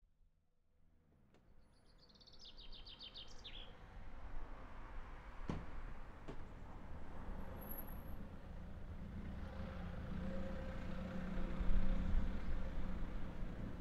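Outdoor ambience fading in: a bird's short, quick chirping call about two seconds in, then a steady low rumble of traffic that grows louder, with an engine hum near the end.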